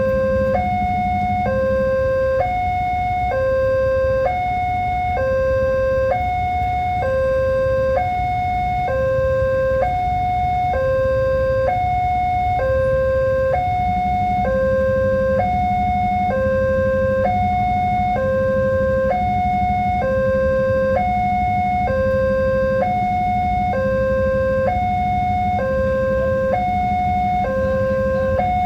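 Railway level-crossing warning alarm sounding a steady two-tone signal, switching between a lower and a higher pitch about once a second. A low rumble runs under it, and a low hum drops out near the start and returns about halfway through.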